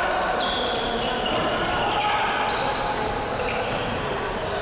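Sneakers squeaking on a sports-hall floor as players run and cut, several short high squeaks one after another, over a steady hall-wide hubbub of voices.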